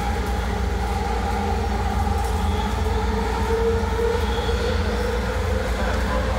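SkyTrain metro car running along the track, heard from inside the car: a steady low rumble with a humming tone that wavers slightly in pitch.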